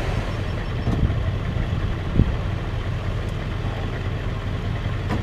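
Vehicle engine idling with a steady low hum, heard from inside the cab, with two dull thumps about one and two seconds in.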